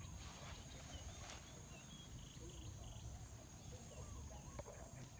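Quiet forest ambience: faint bird chirps, with a few soft crackles in the leaf litter.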